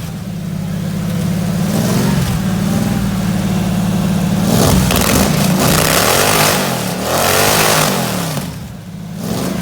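Chevrolet 350 cubic-inch small-block V8 being revved: held at raised speed at first, then blipped several times with the revs rising and falling, dropping back near the end.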